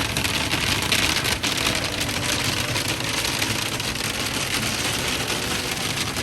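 Hail falling on the roof and body of a Winnebago Ekko camper van, heard from inside: a dense, steady clatter of countless small impacts.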